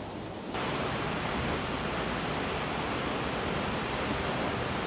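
Steady rushing of a creek's flowing water, an even hiss that starts abruptly about half a second in.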